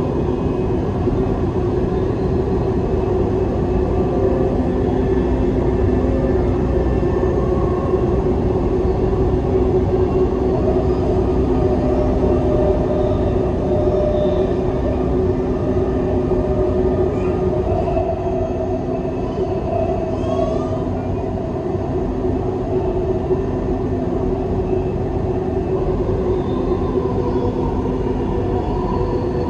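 Dubai Metro train running between stations, heard from inside the carriage: a steady rumble of wheels on track with a steady multi-tone hum from the drive.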